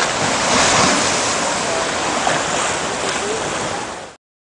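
Steady rushing of sea water and wind at the shoreline, with faint voices under it; it cuts off suddenly near the end.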